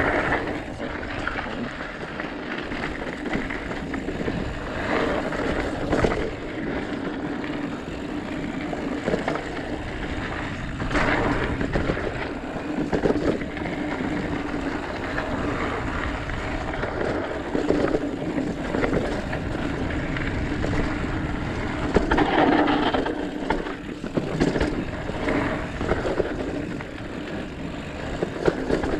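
Mountain bike being ridden down a dirt singletrack trail. The tyres and bike make a continuous rolling rattle, with occasional sharp knocks over bumps.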